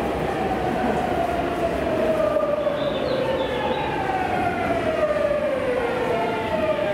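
Electric commuter train's inverter and traction motors whining in several tones that fall steadily in pitch as the train slows, over rail and running noise.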